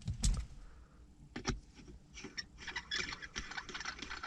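Small metallic clicks and rattles from handling a hex Allen key and a weighted shift knob on a manual car's shifter. There are a couple of sharper knocks in the first second and a half, then a run of quick light clicks.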